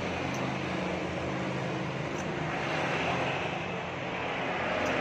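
Passing road traffic: vehicle engines making a steady low hum under a wash of road noise, swelling a little about three seconds in.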